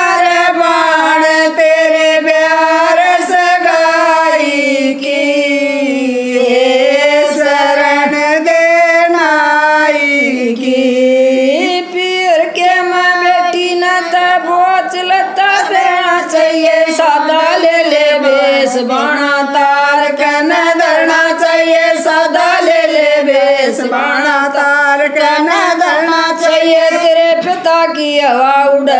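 Three women singing a Haryanvi jakdi folk song together in a continuous, gliding melody.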